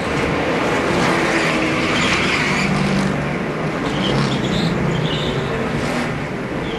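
Several NASCAR Cup stock cars' V8 engines running together on the track, a steady, dense mix of engine tones.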